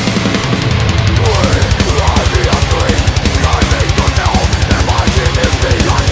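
Heavy hardcore/metal band playing: distorted guitar and bass over rapid, steady kick-drum beats from a full drum kit, with short bending high guitar notes coming in about a second in.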